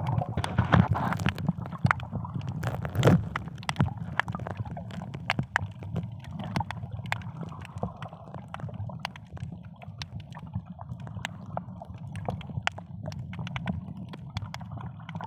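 Underwater sound picked up by a camera held below the surface: a steady, muffled low rumble of water with many scattered sharp clicks and crackles, a little louder and more gurgling in the first few seconds.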